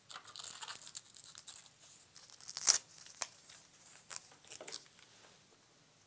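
Faux-fur covering of an animatronic bird being handled and pulled back from its head: a run of short scratchy rasps and rips, the loudest about halfway through.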